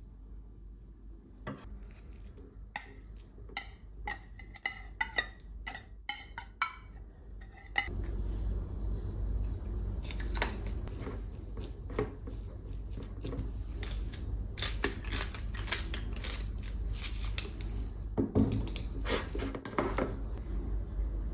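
Metal utensils clinking and tapping against a small glass bowl in a run of light, irregular clicks, then a spoon scraping and stirring in the bowl near the end as a tuna, onion and mayonnaise filling is mixed.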